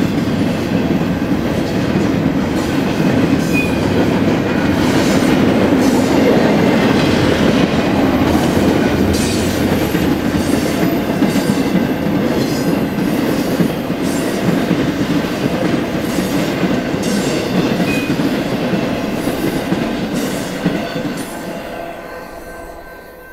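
Intermodal freight train cars rolling past close by: a steady rumble of steel wheels on rail with repeated clacks, fading over the last couple of seconds as the train moves off.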